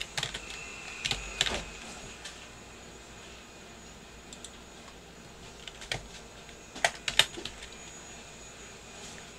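Computer keyboard keys clicking in short, scattered bursts of typing, with the loudest cluster about seven seconds in, over a faint steady hiss.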